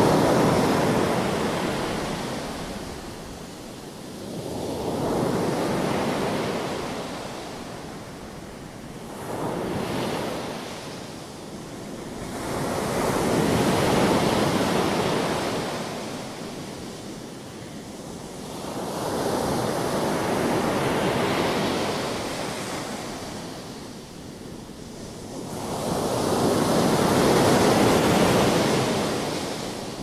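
Surf breaking and washing up on a pebble beach: about six waves in turn, each a rush of surf that swells and fades over several seconds.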